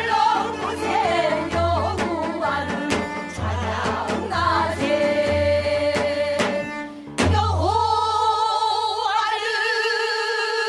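Pansori singing by a male singer over instrumental accompaniment with a pulsing low drone and sharp percussion strokes. About seven seconds in, the singer moves into a long held note with vibrato.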